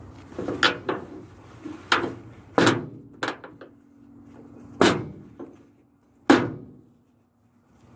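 A run of sharp knocks and bangs, about seven spread over six seconds; the last, about six seconds in, is the loudest.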